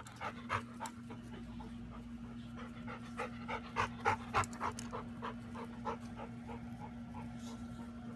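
Dog panting rapidly, about three pants a second, while working a scent track on a leash. A steady low hum sits underneath.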